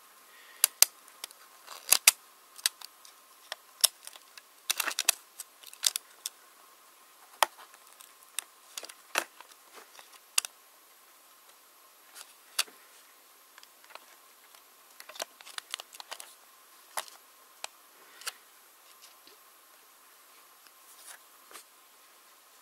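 Irregular small plastic clicks and taps from fingers working a Lenovo G500 laptop's keyboard ribbon cable into its connector latch, busiest in the first ten seconds and sparser after.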